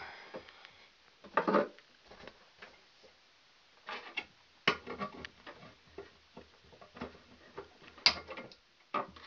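Irregular small clicks, taps and short scrapes of electrical wire and hand tools being handled while wiring a pull-out disconnect, with one sharper click near the end.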